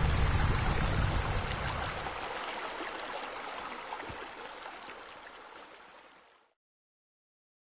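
Steady rush of running water, heavy and rumbling in the first two seconds, then fading gradually until it stops about six and a half seconds in.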